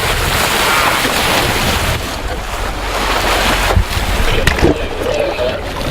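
Wind buffeting the microphone over the wash of sea water around a sport-fishing boat, with a low steady rumble underneath. A couple of sharp knocks come past the middle.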